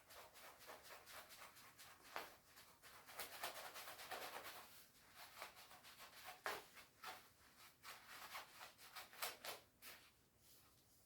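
Faint, irregular rustling and scratching of a shiny down jacket's fabric being handled and rubbed.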